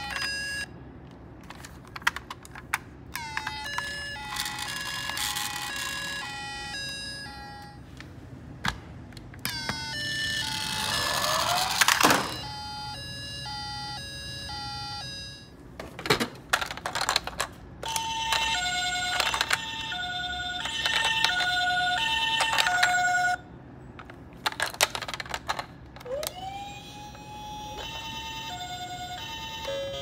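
Electronic sirens of toy ambulances: a two-tone 'pee-po' siren that alternates between two pitches and stops and starts several times, and about ten seconds in a rising-and-falling wail that is the loudest part. Clicks of the plastic toys being handled and their buttons pressed come between the sirens.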